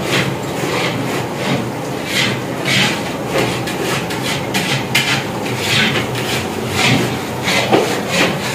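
Large metal stirring paddle scraping round the inside of a big cooking pot (deg) through thick carrot halwa, in repeated strokes about two a second, over a steady low hum.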